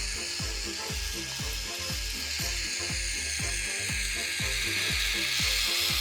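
Motorized K'nex roller coaster running, its lift chain and gears clicking steadily at about two clicks a second over a constant motor hiss.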